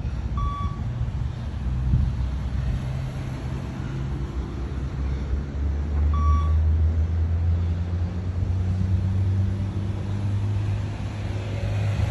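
Two short electronic beep-test beeps about six seconds apart, each marking the end of a 20 m shuttle. A steady low rumble underneath is the loudest sound, heavier from about six seconds in.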